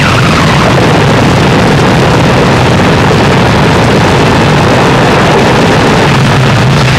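Noise music track: a loud, unbroken wall of distorted noise over a low rumble, unchanging, with no beat or melody.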